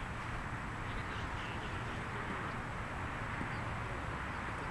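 Steady outdoor background noise in an open park: an even hiss with a low, uneven rumble, and no distinct event standing out.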